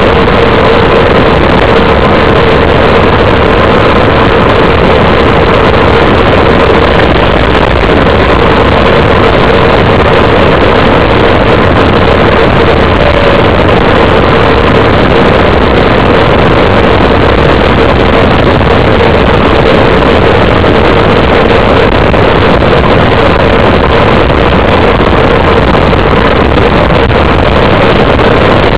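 Loud, steady wind rushing over the microphone of a camera carried on a bicycle descending a mountain road at speed, with a faint steady hum underneath.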